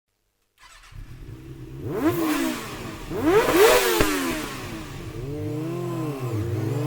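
Kawasaki Ninja ZX-6R 636's inline-four engine being revved. It comes in about a second in and is blipped several times, pitch rising and falling quickly, then climbs steadily near the end.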